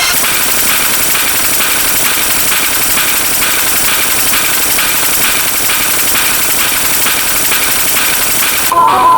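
A loud, steady mechanical noise like an engine running, pulsing evenly at about three beats a second. It cuts off suddenly near the end.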